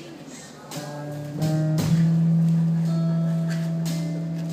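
Electric guitar playing a few short notes, then one long held note that slowly fades.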